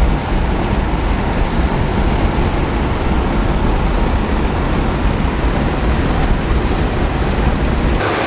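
1980 Cadillac Coupe de Ville out on the road: steady driving noise of its 368 V8, tyres and wind, even throughout. It is a test drive after a new intake manifold gasket.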